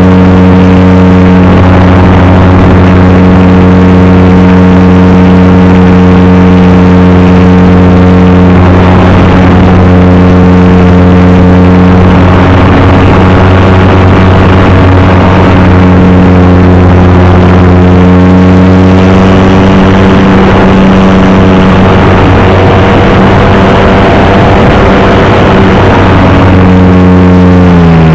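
A model airplane's engine and propeller, heard loud from a camera mounted on the plane, running steadily at high throttle on one even pitch. The pitch drops sharply near the end.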